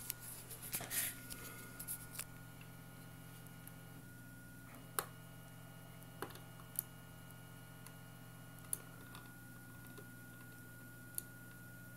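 Faint whine of a MendelMax 1.5-style 3D printer's stepper motors while it prints the perimeter of the first layer. It is a set of steady tones that jump to new pitches every few seconds as the moves change, with a few sharp clicks.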